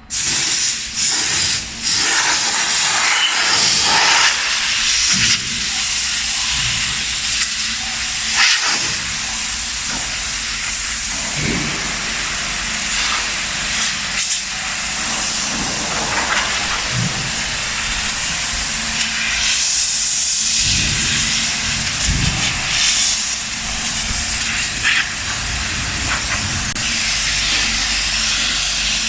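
ATC CNC router running a cut: a loud, steady hissing rush with many short swells, coming on suddenly at the start.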